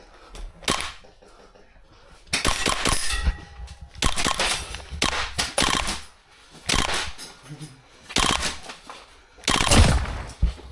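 Airsoft guns firing in repeated rapid bursts, about six bursts with short gaps between them, the longest running some two seconds.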